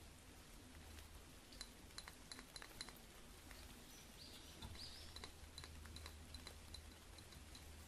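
Near silence: room tone with a low steady hum and a scattering of faint light ticks.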